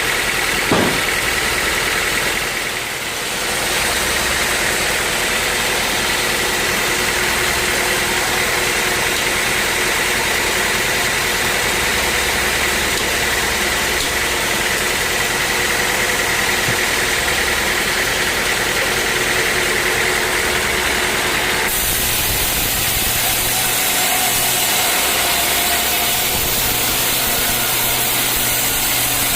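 Sawmill machinery running steadily, an engine-driven mill with a constant high whine. A brief knock comes about a second in, and the sound changes abruptly about 22 seconds in.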